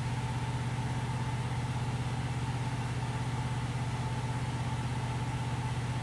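A steady low machine hum with a thinner, higher steady tone above it, unchanging throughout.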